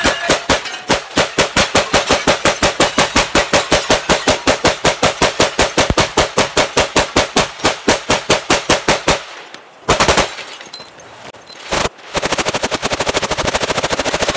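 Zastava PAP M92 AK pistol in 7.62x39 fired rapidly, about five shots a second in a long string lasting some nine seconds. Two lone shots follow, then another fast run of shots near the end.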